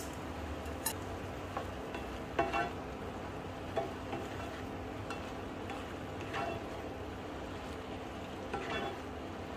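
A black slotted plastic spatula stirring macaroni, broccoli and beef in sauce in a skillet: several soft scrapes and knocks at irregular intervals over a steady hiss.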